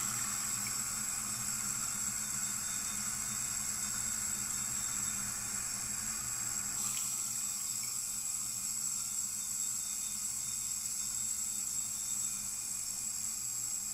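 Water running slowly from a sink tap in a steady stream; its tone shifts slightly about halfway through.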